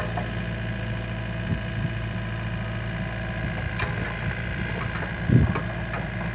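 LiuGong mini excavator's diesel engine running steadily, with a single low thump about five seconds in.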